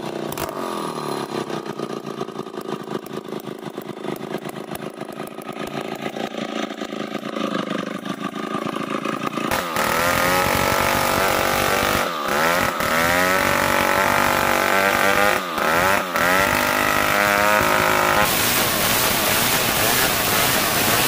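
Old two-stroke chainsaw running at low speed, then opened to full throttle about halfway through and cutting lengthwise into hard marsawa batu timber. The engine dips briefly twice in the cut.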